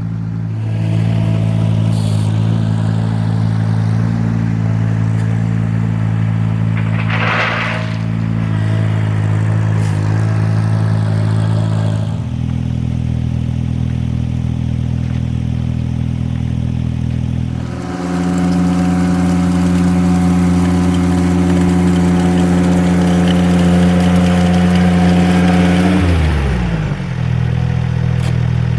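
Engine of a Ventrac compact tractor running under work. Its speed drops about twelve seconds in, rises and gets louder about eighteen seconds in, then falls sharply near the end and settles back. There is a short scraping sound about seven seconds in.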